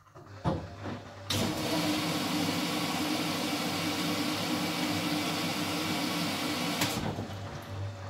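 Miele WS 5406 washing machine mid-wash: a click about half a second in, then a steady hiss of water running into the machine for about five and a half seconds, starting and stopping abruptly, over a low hum.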